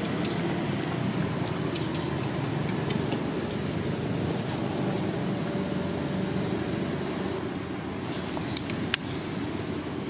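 Steady low background hum, engine-like, with a few faint sharp clicks and one sharper click about nine seconds in.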